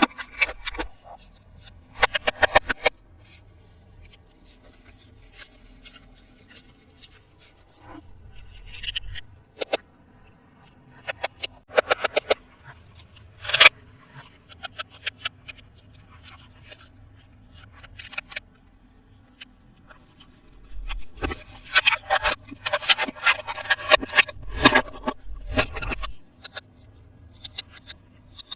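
Hands unpacking toys: irregular bursts of packaging rustling and scraping with sharp clicks, one sharp click standing out about halfway through, and a long dense stretch of rustling about three quarters of the way in.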